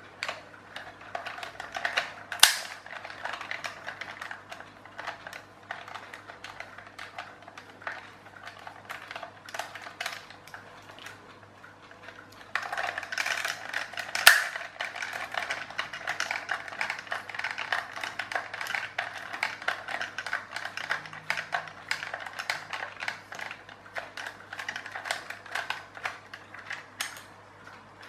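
Small precision screwdriver working screws out of a plastic clockwork toy tractor's body: a run of light, irregular clicks and scratches as the tip turns in the screw heads and the toy is handled. Two sharper clicks stand out, about two and a half seconds in and about halfway through.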